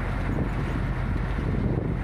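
Steady low rumble of a route bus's engine and road noise, heard from inside the moving bus.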